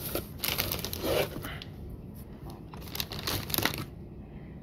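Cardboard box being handled and its flaps opened: two spells of rustling and scraping, one starting just after the beginning and another about three seconds in.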